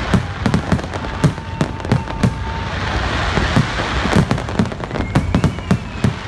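Fireworks display: a rapid, irregular string of bangs, a few a second, over a continuous hiss of noise. Faint whistles run through it, one rising about five seconds in.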